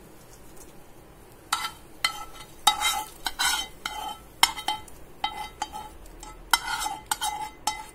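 Metal spoon scraping and knocking against a small frying pan in about a dozen short, irregular strokes that ring with a clear metallic tone, starting about a second and a half in. The spoon is scooping out a tempering of shallots and curry leaves fried in coconut oil.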